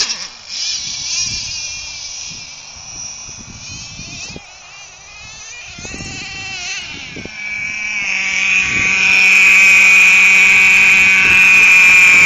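Small nitro glow-plug engine of a remote-control truck running at high revs, a high-pitched whine that wavers up and down as it is throttled. About seven to eight seconds in it grows much louder and settles into a steady high note.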